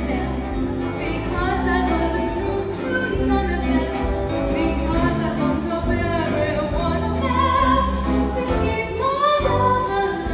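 Show choir singing over a live band, with a steady beat of bright, jingling high percussion about twice a second.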